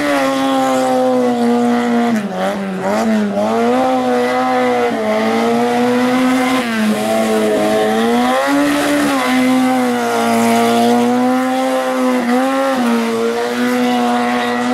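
Autobianchi A112 Abarth 70HP's small four-cylinder engine revving hard through a gymkhana course. Its pitch rises and falls over and over as the driver accelerates and lifts between the cones, dipping sharply several times.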